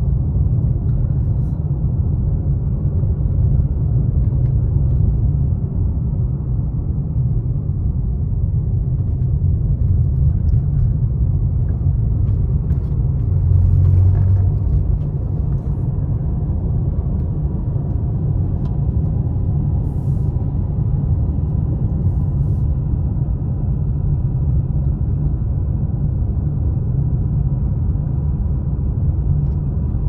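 Steady low road and engine rumble inside a car's cabin while driving on a highway, with a brief louder low bump about halfway through.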